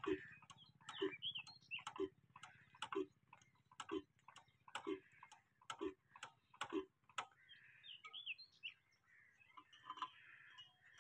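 Old horizontal stationary engine clicking at an even pace of about once a second, the clicks stopping about seven seconds in; birds chirp faintly near the end.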